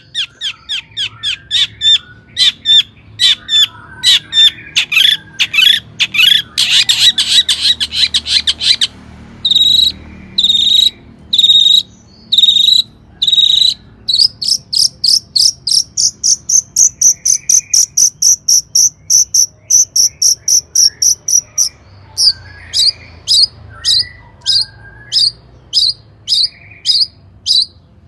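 Long-tailed shrike (cendet) singing loudly in fast strings of sharp, repeated chattering notes, several a second, in changing phrases. Midway comes a quicker, higher run lasting several seconds.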